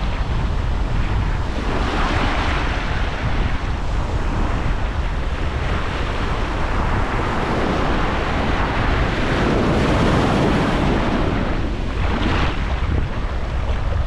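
Atlantic Ocean surf breaking and washing up the beach, swelling louder several times, most strongly for a few seconds in the second half, with wind rumbling on the microphone throughout.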